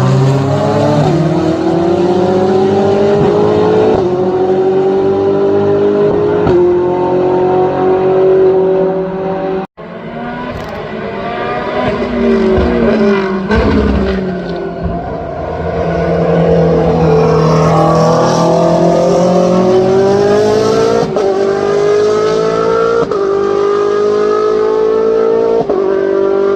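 High-revving racing car engine accelerating hard, its pitch climbing and dropping back with each quick upshift. The sound cuts out for an instant about ten seconds in. Then the revs fall and waver through downshifts before the engine pulls up through the gears again.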